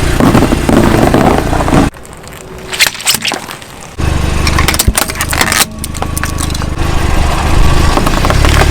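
Car tyre rolling over and crushing objects: sharp cracking and crunching over the steady low hum of the engine, in several short cuts.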